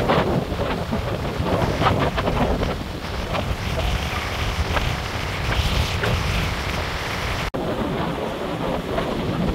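Gusty wind buffeting the phone's microphone over the steady wash of heavy, storm-driven surf breaking on the beach. The sound cuts out for an instant about seven and a half seconds in.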